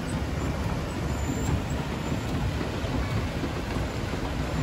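Steady outdoor ambience: an even low rumble with a hiss above it and no distinct events.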